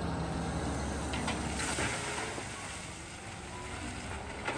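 Caterpillar large wheel loader's diesel engine running steadily under load, with a short burst of noise about two seconds in.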